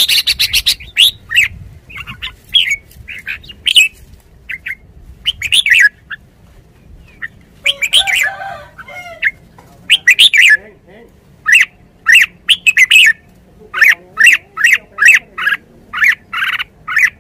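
Red-whiskered bulbul calling: short, sharp chirps in quick runs, a pause about six seconds in, then a fast, even string of chirps through the last several seconds.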